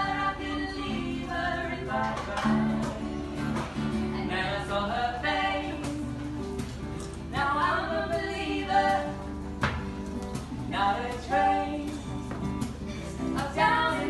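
Music: a song with a singing voice over sustained accompaniment.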